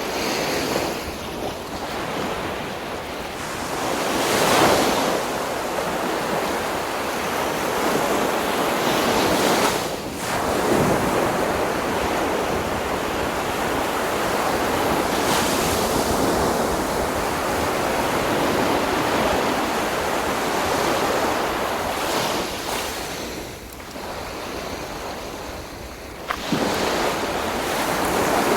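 Sea waves breaking on a beach and washing up the shore in repeated surges, with wind buffeting the microphone. A wave crashes loudly about four seconds in, and another surge arrives suddenly near the end after a short lull.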